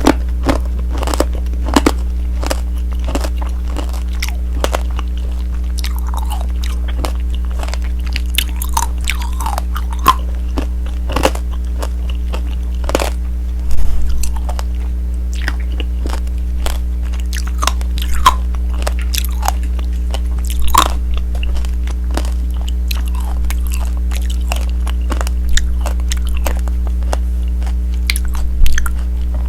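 Close-up biting and chewing of tanghulu, fruit in a hard candied sugar shell: irregular sharp crunches and crackles of the sugar glass breaking, with a louder crunch about halfway through and another near the end. A steady low hum runs underneath.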